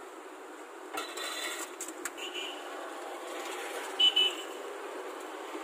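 Steady street and traffic noise, with two short high-pitched horn toots a little past the middle. A few light clicks come earlier on.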